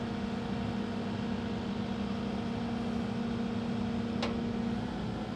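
Cat 308E2 mini excavator running steadily under load, a constant engine hum with a held low tone. A single sharp click comes about four seconds in.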